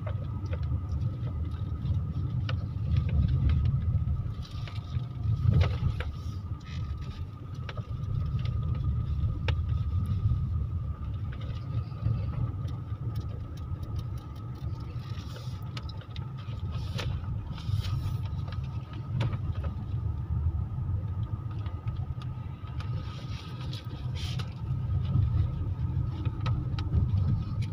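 Road and engine noise heard inside a moving car's cabin: a steady low rumble with a faint steady whine above it, and now and then a light click or knock.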